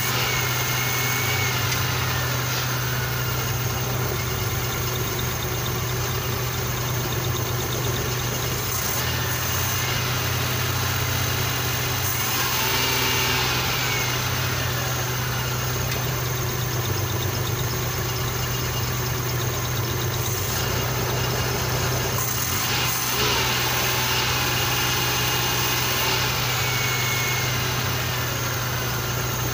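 Suzuki F6A three-cylinder multicab engine idling steadily, with one spark plug that is not firing properly and a spark supply that cuts in and out.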